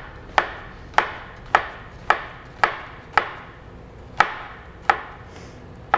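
Chef's knife slicing down through a halved onion and knocking on a plastic cutting board, about nine sharp strokes at roughly two a second with a brief pause midway. These are the lengthwise cuts of a dice, stopping short of the root end.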